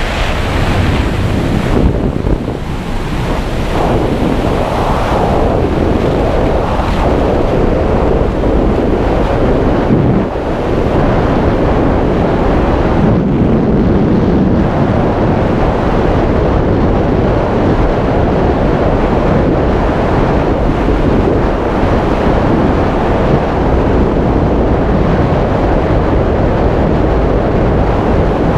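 Loud, steady wind rushing over the microphone in skydiving freefall.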